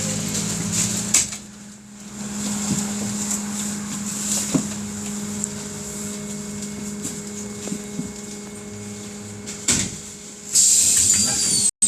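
Inside a BKM 221 trolleybus: a steady electrical hum with scattered knocks and clicks, then a loud hiss starting near the end as the pneumatic doors work.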